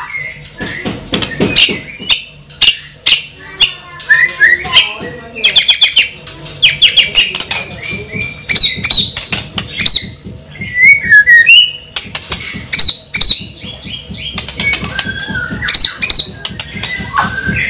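A bird chattering throughout, in a busy run of short chirps, sliding whistles and clicks.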